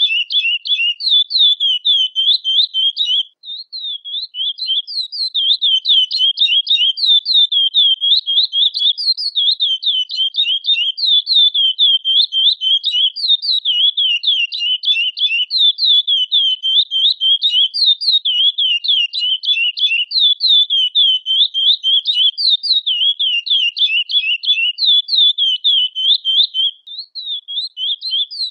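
Chestnut-bellied seed finch (curió) singing: a long, fast run of high, sweeping notes, pausing briefly about three seconds in and again near the end.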